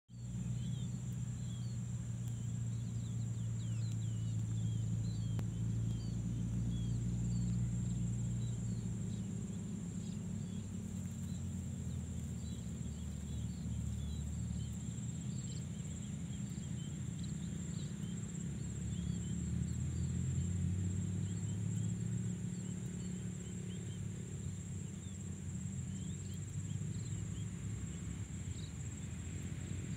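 Outdoor ambience of insects: a steady high-pitched drone with many tiny scattered chirps, over a low wavering rumble.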